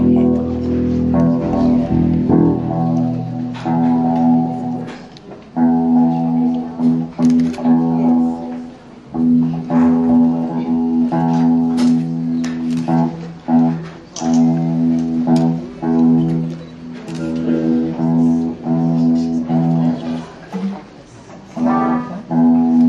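Live band playing an instrumental passage: electric guitars and bass guitar repeating a riff of held notes in short phrases with brief breaks between them, with sharp hits over the top.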